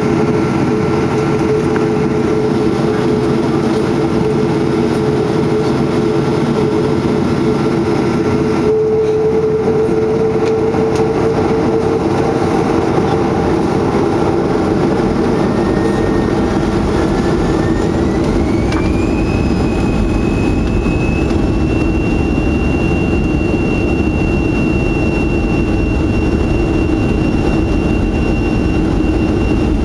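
Cabin noise inside a Boeing 737-300 from its CFM56-3 engines. A steady hum runs at first; about halfway through, the engines spool up and a whine rises in pitch, then holds high over a growing low rumble, as takeoff thrust is set.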